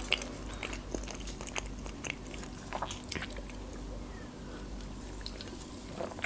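Close-miked chewing with many small, scattered wet mouth clicks, then quieter sipping and swallowing from a can of soft drink over the last couple of seconds.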